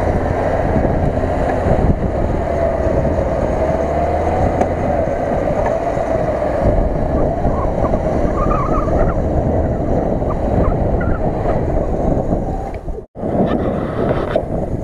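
Lada Niva's four-cylinder engine running hard under load as the four-wheel-drive climbs out of water onto a muddy bank, its pitch wavering slightly, with wind buffeting the microphone.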